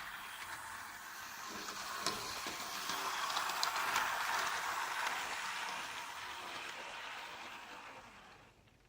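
Jouef model locomotive running along the track, a steady mechanical running noise with a few sharp clicks. It grows louder to a peak about four seconds in, then fades away near the end.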